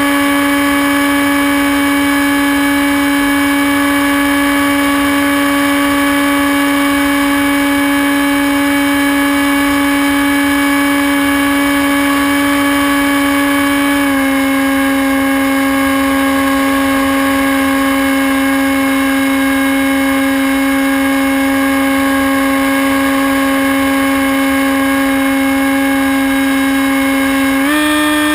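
Electric motor and propeller of a Hawk Sky RC plane, picked up by its onboard camera, running as a steady whine. The pitch steps slightly lower about halfway through and rises again just before the end.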